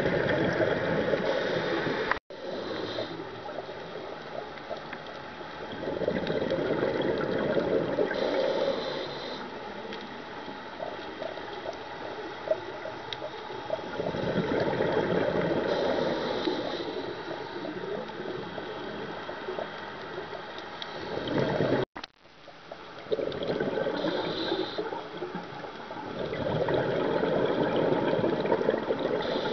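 Scuba diver breathing through a regulator underwater: a slow repeating cycle of a short hissing inhale and a long rush of exhaled bubbles, several breaths in all.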